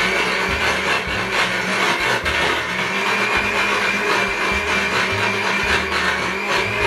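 Electric countertop blender running at full speed, crushing ice with banana, almonds and milk. The loud motor whirs steadily while the jar rattles and shakes on its base.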